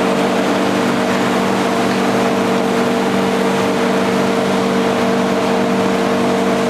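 Korean bingsu snow-flake ice machine running, its chilled roller turning out ribbons of flavoured snow flakes: a steady mechanical hum with several fixed tones over an even hiss.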